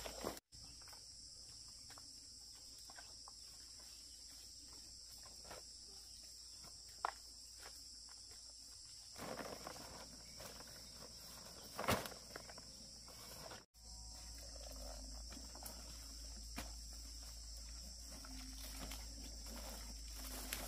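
Insects chirring steadily in a high, even buzz, with scattered rustles and a few sharp snaps or clicks; the sound drops out completely for an instant twice.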